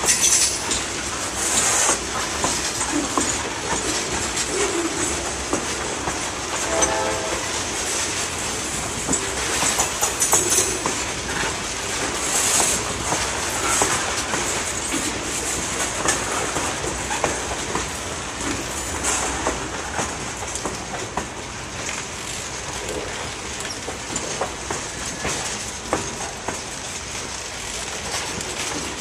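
Loaded freight hopper cars rolling slowly past, their wheels clicking and clanking over the rail joints in an uneven rhythm.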